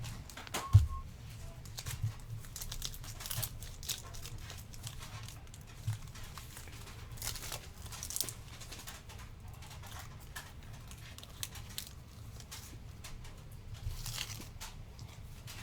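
Crinkling and tearing of trading-card pack wrappers, with cards being handled, and a sharp knock about a second in.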